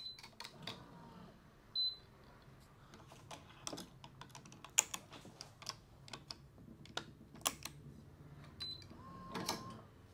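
Irregular light clicks and taps of badminton racket string being handled on a racket mounted in a stringing machine, the loudest about five seconds in.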